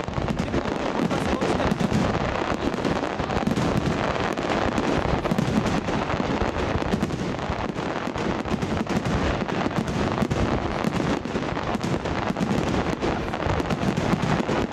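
Aerial fireworks bursting in rapid succession: a dense, unbroken barrage of bangs and crackling with no pauses between shells.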